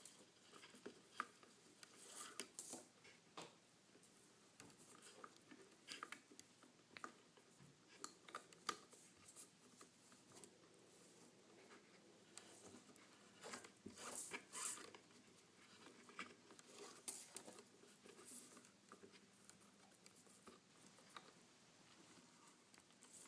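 Faint, irregular rustling and scratching of nylon paracord being woven and pulled tight by hand, with short scraping strokes that come thicker around the middle.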